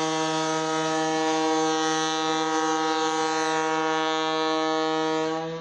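Chicago & North Western GP7 diesel locomotive's air horn sounding one long, steady blast that cuts off near the end.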